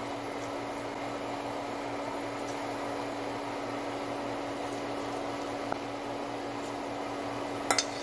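Grated-radish balls deep-frying in hot oil in a stainless steel pot: a steady sizzle over a steady low hum, with a faint tick partway through and a sharper click near the end.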